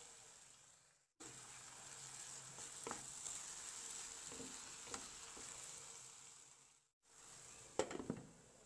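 A chicken, tomato and coriander mixture sizzling in a frying pan while a wooden spatula stirs and scrapes through it. Near the end, a few sharp clinks as a glass lid is set on the pan.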